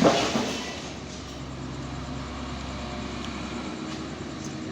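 Kubota 55 compact excavator's diesel engine running steadily under work, after a loud rush of noise in the first half second or so.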